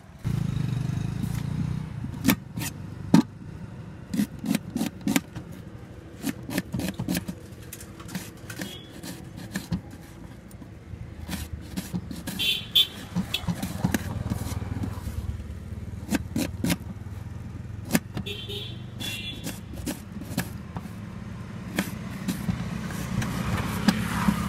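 Knife chopping onions on a metal plate: sharp, irregular clicks of the blade striking the metal, coming in runs.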